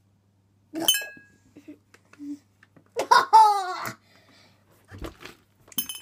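A girl laughing about three seconds in, the loudest sound. Around it come clicks and crackles of a plastic water bottle being handled and opened, including a sharp click about a second in.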